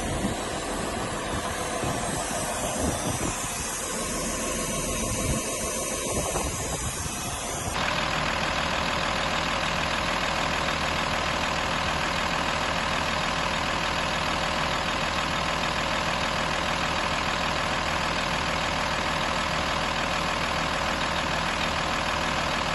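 Diesel engine of a Cat 143H motor grader running at idle. About eight seconds in, the sound changes abruptly to a steadier, fuller engine note that then holds unchanged.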